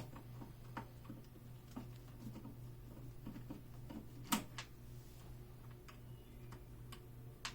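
Faint scattered ticks and taps of the two screws being unscrewed from a desktop PC case, with one sharper click about four seconds in, over a steady low hum.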